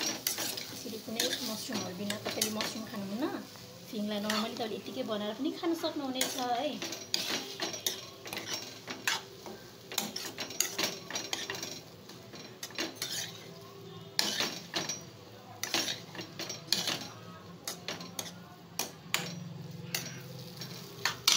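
Wooden spatula scraping and knocking against a steel kadhai as fried noodles are stirred and tossed, in irregular clicks and scrapes, with a light sizzle underneath.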